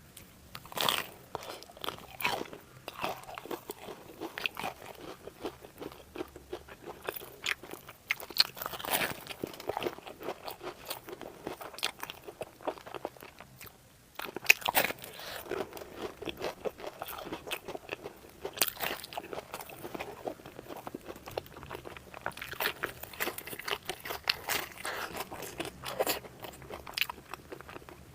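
A person biting into and chewing crunchy food, with dense, irregular crunches and mouth clicks. There is a brief lull just before the middle, then a loud crunch.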